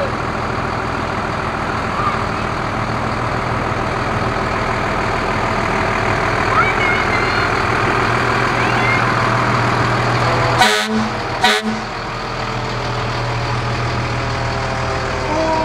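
Fire engines passing slowly, their diesel engines running steadily. Two short horn blasts come about ten and eleven seconds in, and a siren starts up right at the end.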